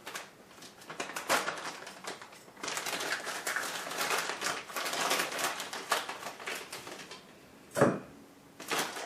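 Plastic bag of almond meal crinkling and rustling as it is handled and measured out with a cup, with one sharp knock near the end.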